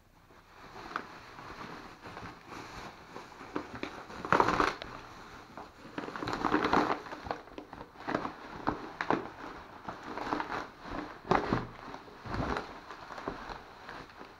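Bubble wrap and a plastic bag crinkling and crackling as they are pulled off a crash bar: an irregular rustle with several sharper, louder crackles, the loudest about four and a half seconds in and again near the end.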